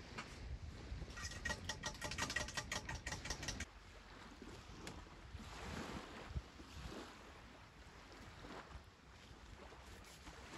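Sea waves washing on a sand beach, with wind on the microphone. About a second in, a rapid run of clicks, several a second, lasts a couple of seconds and stops abruptly.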